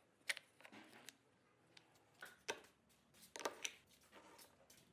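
Small cut wooden blocks clacking against each other and being set down on a wooden tabletop: a scattered series of light, sharp knocks, a few of them louder.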